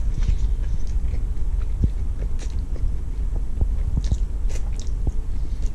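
Close-up chewing and mouth noises of someone eating a chickpea-pasta and vegetable stir-fry, with scattered short clicks and smacks over a steady low rumble.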